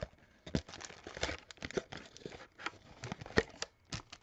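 Plastic wrapping and packaging crinkling and tearing as a box of trading cards is torn open, in irregular crackles and rustles.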